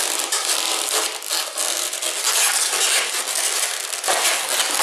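Inflated latex modelling balloons rubbing and squeaking against each other and the hands as they are twisted and tucked together: a dense crackly rustle with many small clicks.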